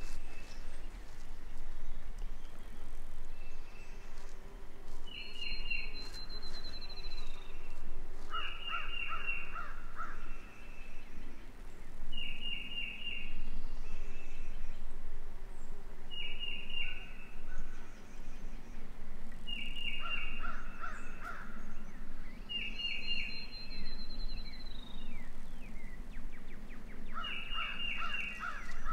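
Wild turkey gobbling over and over, a rapid rattling call about every three to four seconds, seven times in all. A thin whistle falling in pitch sounds twice.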